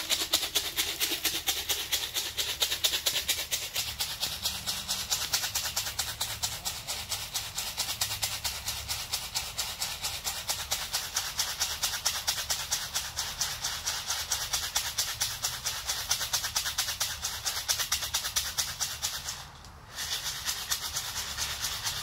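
A fast, even rattle that keeps going, with a break of about half a second near the end.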